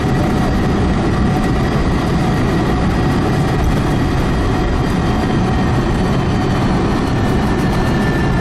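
Steady loud roar heard from inside the cabin of a Boeing 747SP rolling down the runway after landing: jet engine and rolling noise, with a faint engine whine that drifts slightly lower late on.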